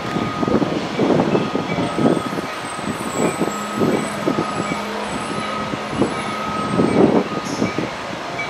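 Vehicle engines running, swelling and fading irregularly, with a steady whine for a few seconds partway through.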